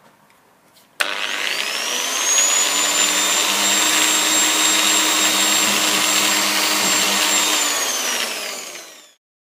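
Variable-speed angle grinder driving an Arbortech Mini Contour Sander attachment, switched on about a second in: its whine rises as it spins up, runs steadily as the small pad sands carved pine, then falls as it winds down near the end before the sound cuts off.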